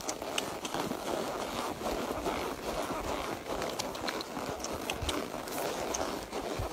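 A horse's hoofbeats, irregular dull thuds on the ground, under a steady rushing noise.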